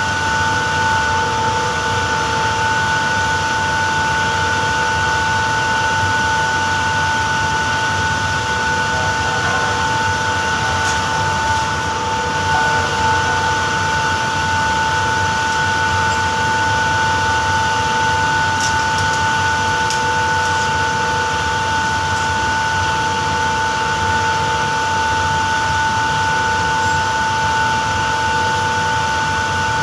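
Refrigeration plant machinery running steadily: a constant whine of several steady tones over an even mechanical noise.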